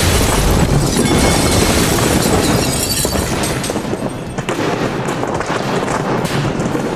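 Loud, sustained rumbling noise with no clear pitch, easing off after about four seconds.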